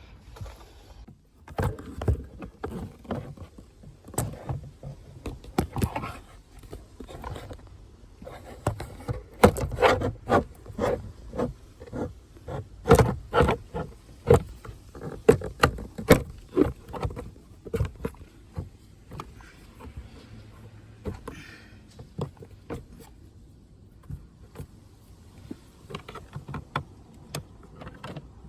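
Irregular clicks, knocks and rattles of parts and tools being handled, busiest through the first half and sparser after.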